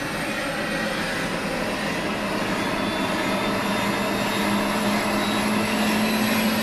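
Helicopter engine and rotor running, heard from inside the cabin: a dense steady noise with a low hum and a thin high whine, growing gradually louder.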